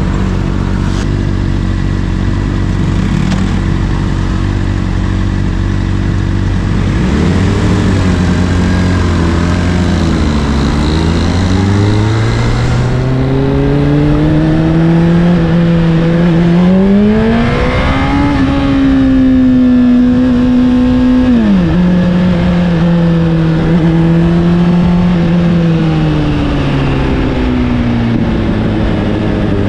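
Honda CBR600RR inline-four with an Akrapovic exhaust, idling steadily, then pulling away about seven seconds in. The engine note rises and dips, climbs to its highest pitch, holds, drops suddenly about two-thirds of the way through, holds again, and eases down near the end as the bike slows.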